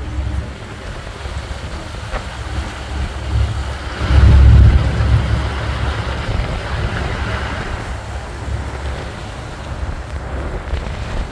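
Wind buffeting the microphone on the open deck of a moving tour boat, over the low rumble of the boat underway. The strongest gust comes about four seconds in.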